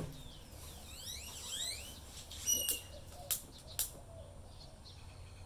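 Long-neck butane utility lighter clicked three times, about half a second apart, lighting charcoal soaked in lighter fluid in a chimney starter. Birds chirp with quick rising calls in the first two seconds.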